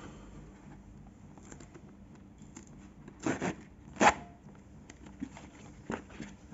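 GoPro Hero 10 retail box being opened from the bottom, breaking its factory seal: light scratching and rustling of the packaging, with two louder tearing or scraping noises a little past the middle, then a couple of small clicks.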